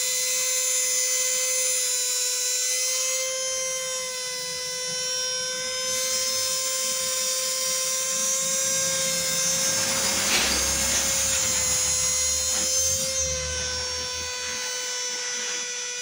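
Opened hair dryer's small fan motor running steadily with a high whine, its air inlet covered with a cloth so the heating element heats up and burns off hair caught inside it. A brief burst of noise and a low rumble about ten seconds in.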